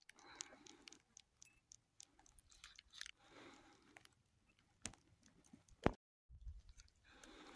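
Near silence, with faint scattered clicks and soft crunches and a sharper click just before six seconds in.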